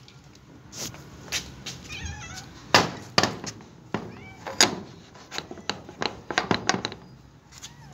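Kittens meowing repeatedly for food, in short high calls mixed with sharp clicks and knocks.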